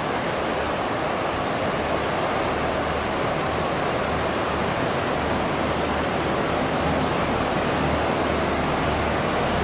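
Fast whitewater rapids of the Niagara River rushing steadily.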